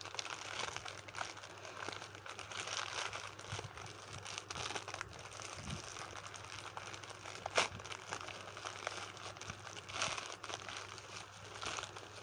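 Plastic courier mailer crinkling and rustling as it is torn open and handled by hand. Many small crackles, with one sharp crackle about two-thirds of the way through and a louder rustle soon after.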